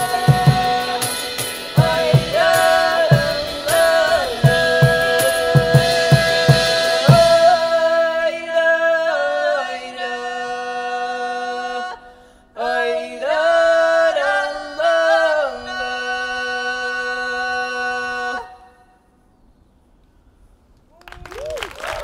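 Folk ensemble performing: drum strokes under singing and violin for the first several seconds, then the drums stop and long held, sliding sung and bowed tones continue, with a brief break partway through. The music ends, a short hush follows, and applause begins at the very end.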